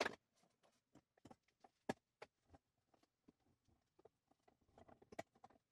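Near silence broken by a few faint, sharp knocks and clicks of a wooden shelf board and its caster hardware being handled. The loudest come right at the start and about two seconds in.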